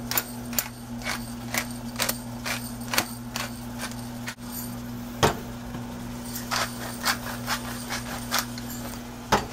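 Salt and pepper grinders twisted by hand, giving a run of short sharp cracking clicks, about two or three a second, with a pause around four seconds in and a louder click about five seconds in. A steady low hum sits beneath.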